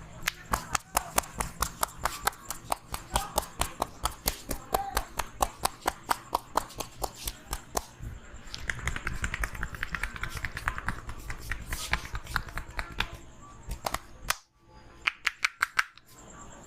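Hands slapping and clapping rhythmically on a head during an Indian head massage: a long, even run of sharp claps at about four a second. The claps break off about 13 seconds in, then come as a quick burst of about six more near the end.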